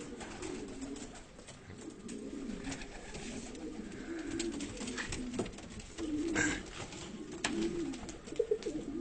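Domestic pigeons cooing continuously in a loft, a low rolling warble, with a few sharp clicks or claps, the loudest a few seconds apart in the second half.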